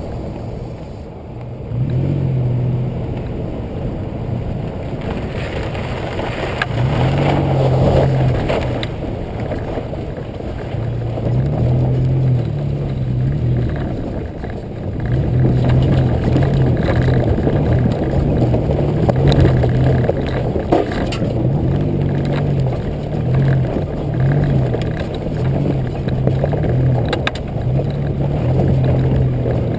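2005 Nissan Xterra's 4.0-litre V6 heard from low on the rear bumper while driving off-road: a steady engine drone that rises and falls in pitch with the throttle, with a few scattered knocks and scrapes.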